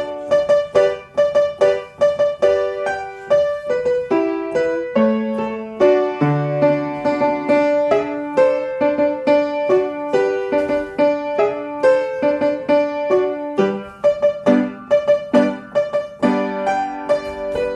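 Piano playing ballet-class accompaniment, a brisk run of rhythmic chords and melody notes with no break.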